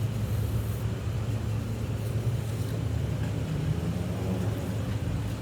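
Steady low mechanical hum, with an even background rush.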